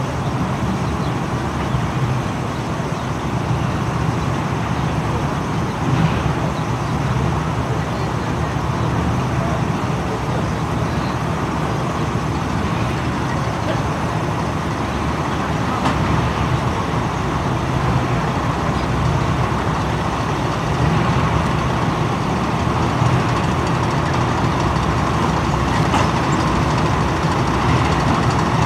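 Engines of a slow-moving column of military vehicles, a UAZ jeep leading armoured vehicles, running in a steady low drone that grows slightly louder as the column comes closer.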